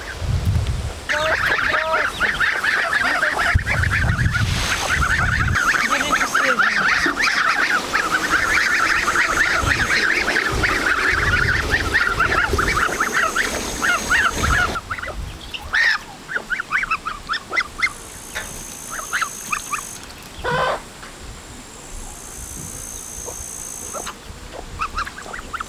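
A flock of young white domestic geese calling: a dense run of many short, overlapping calls for the first fourteen seconds or so, then scattered single calls.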